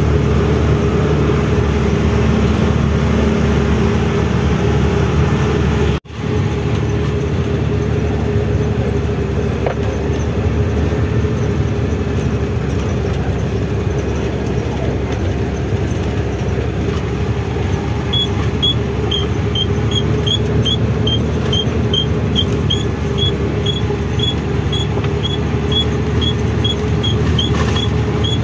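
Twelve-wheel truck's diesel engine working slowly up a long climb, a steady low drone that breaks off for an instant about six seconds in. From about two-thirds of the way through, a short high chirp repeats about twice a second over the engine.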